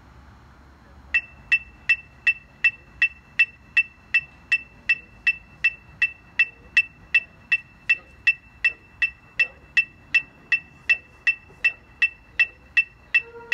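Electronic metronome clicking steadily at nearly three beats a second, each click the same sharp two-tone beep, starting about a second in. Near the end a held musical note comes in over the clicks.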